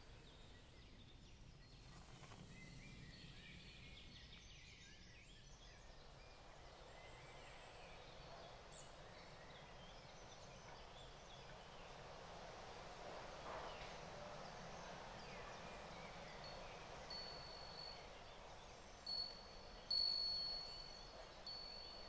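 A faint steady hush, then from about three-quarters of the way in, a wind chime ringing in a series of short, clear, high notes, loudest near the end.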